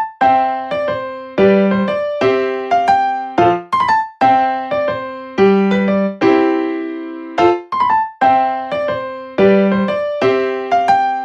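Background music: a piano-like keyboard playing a light melody of separate struck notes, each left to ring and fade, with the phrase coming round about every four seconds.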